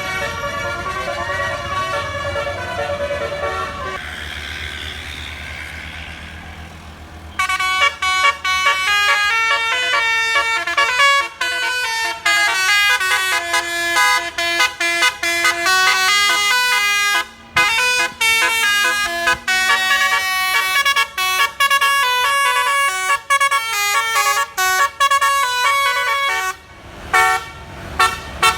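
Bus telolet basuri horn, a multi-trumpet air horn, playing a tune of quick stepping notes with short breaks between phrases. A softer chord of horn notes comes first, the tune turns loud about seven seconds in, and it ends in a string of short blasts.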